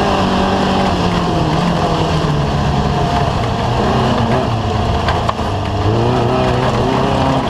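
Off-road race vehicle's engine running hard, its pitch easing down over the first few seconds and climbing again about six seconds in.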